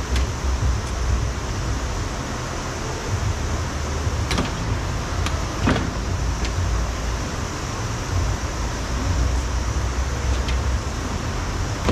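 Steady low rumble and hiss of background noise, with a few sharp light clicks about four to six seconds in.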